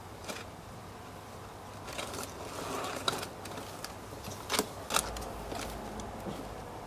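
Wicker storage box knocking and rustling as a cat inside pushes at the lid and another cat shifts on top of it: a few scattered sharp knocks and creaks, the loudest two close together a little after the midpoint.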